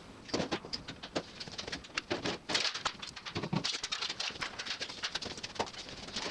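Irregular clicks, taps and clatter of a microwave's sheet-metal casing and parts being handled and pulled apart, with a few heavier knocks.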